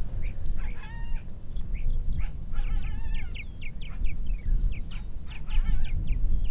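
Coyotes yipping and howling together: a run of many short, high, falling yips with a few longer howls mixed in, over a low wind rumble.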